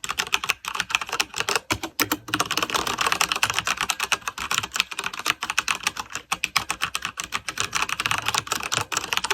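Fast continuous typing on a Corsair K63 mechanical keyboard with Cherry MX Red linear switches, a dense patter of key clicks and keycaps bottoming out.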